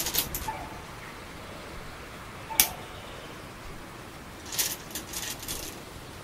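Go stones clicking against a wooden board. A single sharp clack about two and a half seconds in is the loudest sound, with a short ring. Clusters of lighter clicks come near the start and again around five seconds in.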